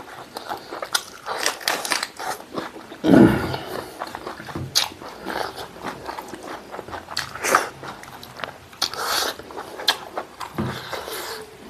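Close-miked eating sounds of a person chewing: wet chewing, crunching and lip smacks coming in irregular runs, with one louder, lower mouth sound about three seconds in.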